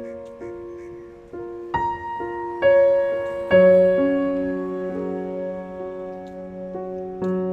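Background piano music: a slow melody with chords, each note struck and left to ring, the loudest chords about two and three and a half seconds in.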